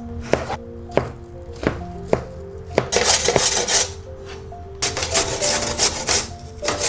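Kitchen knife cutting food on a cutting board: several sharp taps in the first three seconds, then two longer crackly, crunching stretches. Soft background music with sustained notes plays underneath.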